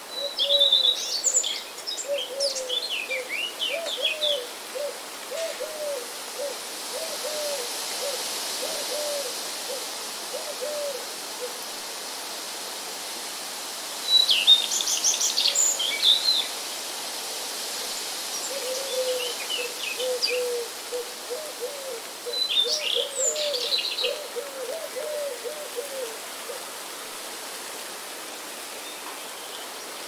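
Birdsong: one bird repeats a low note several times a second in two long runs, one at the start and one from about eighteen seconds in, while other birds give short clusters of high chirps and trills at intervals. A steady hiss lies underneath.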